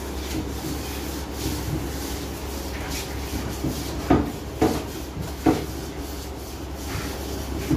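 Steady background noise of a bread-baking kitchen, with three short knocks between about four and five and a half seconds in as the flatbread is handled on a gas burner's steel stand.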